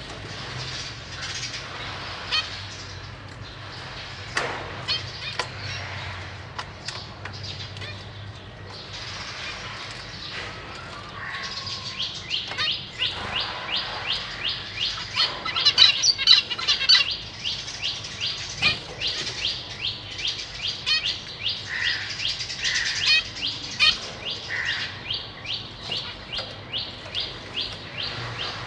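Zebra finches calling in a cage. At first there are scattered high chirps, then about halfway through a fast, even run of short high calls sets in, about three a second, and carries on.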